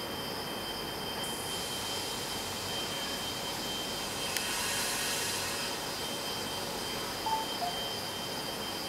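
A regional train standing at the platform with its equipment running: a steady hum with a thin high whine. A hiss swells and fades about halfway through.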